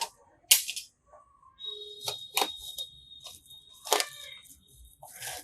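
A cardboard smartphone box being worked open by hand: several sharp clicks and handling rustles, with a steady high-pitched tone lasting a couple of seconds in the middle.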